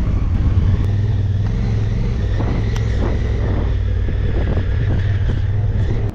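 A motor vehicle on the move, its engine giving a steady low rumble with a hiss of wind and road noise above it.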